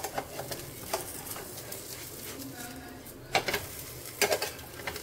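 Semolina-and-vegetable cheela frying in mustard oil in a pan, with a steady sizzle. A few sharp knocks and scrapes of a utensil against the pan stand out, the loudest clustered past the middle, as the pancake is turned over.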